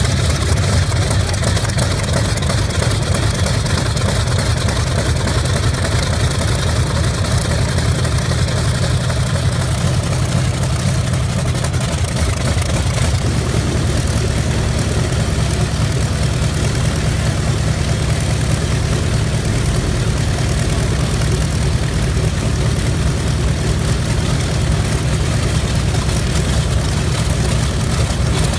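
Grumman F7F Tigercat's Pratt & Whitney R-2800 radial piston engine running steadily at idle on the ground, a deep, even engine sound. A thin high tone sits over it for roughly the first ten seconds, and the engine note thickens slightly about 13 seconds in.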